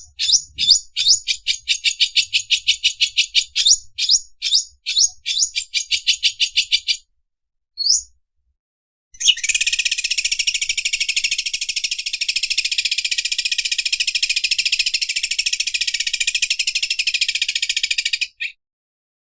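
Cucak ijo (leafbird) singing: a run of quick, high, descending chirps that speed up, a single note about eight seconds in, then after a short pause a long, fast, high rattling trill, the 'mesin obras' overlock-sewing-machine style of song, that runs about nine seconds and stops abruptly.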